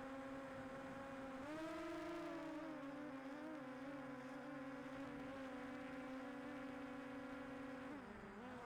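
DJI Air 2S quadcopter drone's propellers whining steadily. The pitch rises about a second and a half in, wavers, settles back, and dips briefly near the end as the motors change speed.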